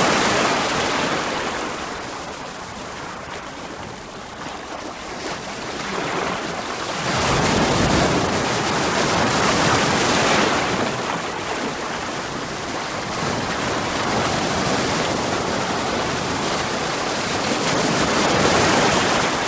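Ocean waves breaking on rocks, a rushing wash that swells and ebbs, with a big surge about a third of the way in and another near the end.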